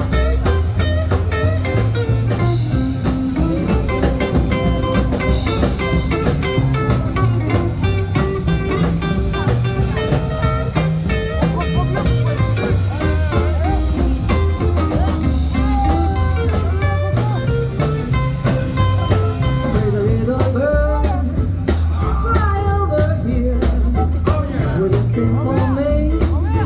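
Live band playing a rhythm-and-blues number, with a bass line stepping from note to note under steady drums and a wavering melody line that grows stronger near the end.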